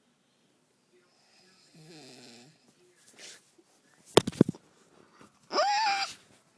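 A sleeping woman snoring, with one low buzzing snore about two seconds in and a fainter one after it. A few sharp knocks follow about four seconds in, then a short, loud, high vocal squeal that rises and holds near the end.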